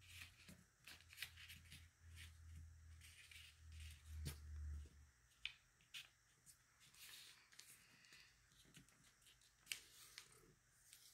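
Faint rustling and light scattered taps of scrapbook paper being folded and pressed flat by hand against a table, with a low hum in the first half.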